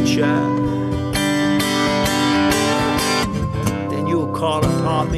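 Soprano saxophone playing a melody over a strummed acoustic guitar. A long held note comes first, then shorter notes with slides in pitch.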